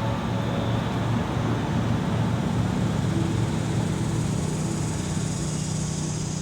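Steady motor-vehicle hum with a constant low drone and road-like noise, with a hiss that swells in the second half.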